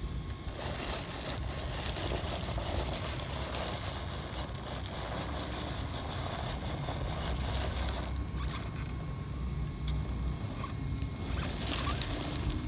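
Radio-controlled rock crawler built on an Axial SCX10 chassis, its drivetrain running as it climbs a heap of crushed stone, with loose rocks clattering and crunching under its tyres in many small knocks.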